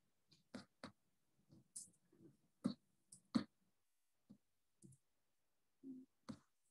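Faint, irregular clicks and light knocks close to a computer microphone, about a dozen, the two loudest around the middle: mouse clicks and handling noise as the screen share is stopped.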